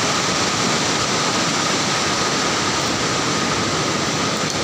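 Loud steady rush of floodwater pouring into a hydroelectric power house's machine hall, with a faint steady high tone running through it.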